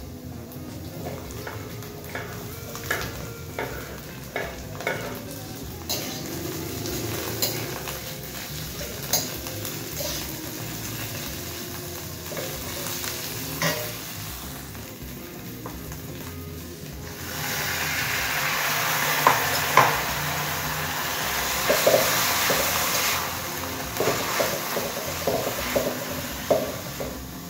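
Metal spatula scraping and clacking against a wok as sliced shallots, garlic and chilies are stir-fried in a little oil over a steady sizzle. A little past halfway the sizzle turns suddenly loud as the soaked glass noodles go into the hot wok, and the spatula keeps scraping and clacking as they are stirred.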